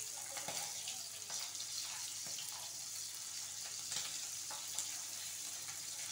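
Dried salted fish frying in oil in a nonstick pan: a steady sizzle with small crackles, and a few light clicks as chopsticks turn the pieces.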